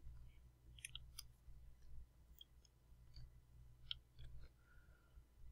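Faint, irregular clicks of a computer mouse scroll wheel over a low steady hum, close to silence.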